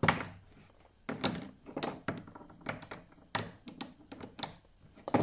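Freshly cast lead balls, still joined on their sprues, handled and set down on a wooden workbench: a string of irregular sharp knocks and clinks.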